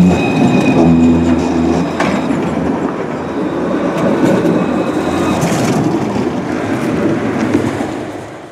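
Modern low-floor Alstom Citadis tram running past close by. There is a hum of several steady tones from its drive in the first second or so, then a steady rumble of steel wheels on rail with a few sharp clicks over joints, fading out near the end.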